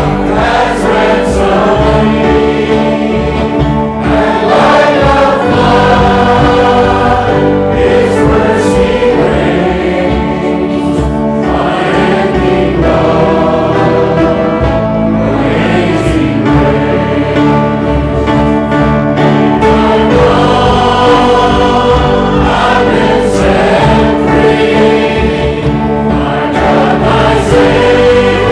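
Worship music: a group of voices singing a gospel-style song over steady sustained instrumental accompaniment.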